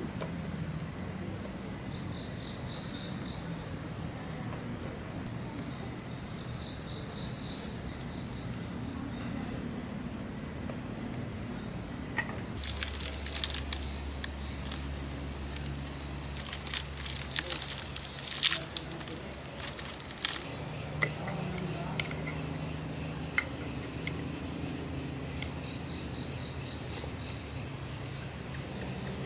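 Insect chorus at a forest campsite: a steady, high-pitched drone throughout, with a cluster of faint clicks and taps through the middle.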